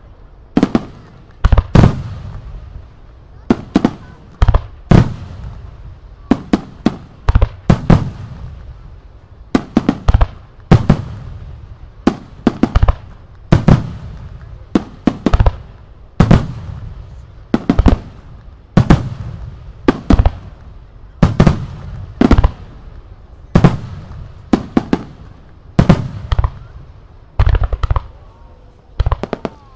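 Starmine fireworks barrage: aerial shells bursting in quick succession, over thirty sharp bangs at roughly one a second, often in close pairs or triples, each followed by a low rumbling echo.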